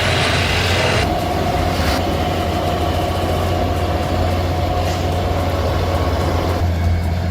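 Heavy truck engine running steadily with a deep, constant low hum.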